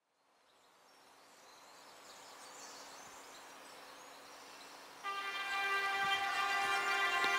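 Horn of an approaching BR232 'Ludmiła' diesel locomotive, sounded as one long blast starting about five seconds in: the Rp1 'attention' warning signal. Before it comes the faint steady rumble of the oncoming train.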